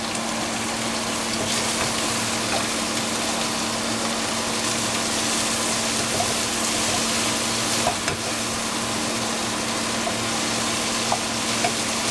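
Broccolini, portobello mushroom and capsicum sizzling steadily in a hot frying pan, with a constant low hum underneath.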